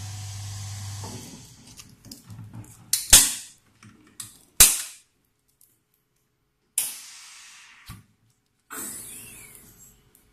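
Nano waterproof coating machine: a steady hum cuts off about a second in, then come several loud sharp snaps, most of them trailing off in a short hiss.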